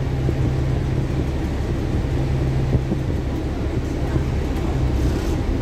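Steady low engine and road rumble heard from inside the passenger cabin of a moving coach bus.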